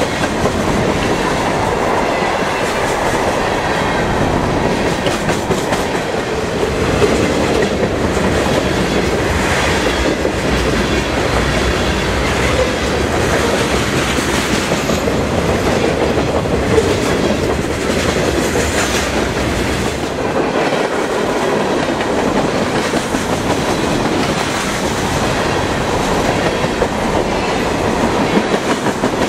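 Freight cars of a passing train rolling by close up: a steady, loud rumble of steel wheels on rail, with rhythmic clacking over the rail joints.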